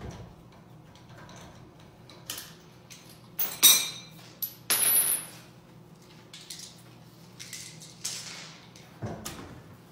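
Metal tools clanking and scraping: a series of sharp metallic knocks with some ringing, the loudest a little under four seconds in, followed by a brief scrape.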